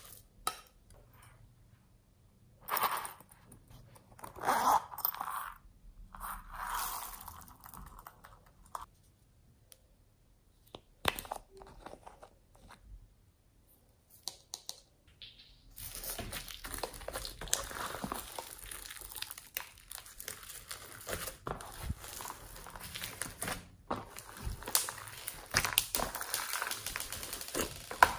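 A few short rustling pours of small beads and sprinkles into a bowl. From about halfway, continuous crunching and crackling as clear slime packed with foam balls and beads is squished and kneaded by hand.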